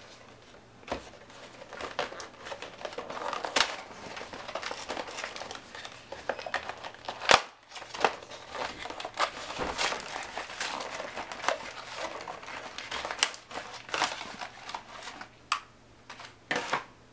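Cardboard box and clear plastic packaging of a portable hard drive being opened by hand: crinkling and rustling with scattered clicks and taps, and one sharp click about seven seconds in.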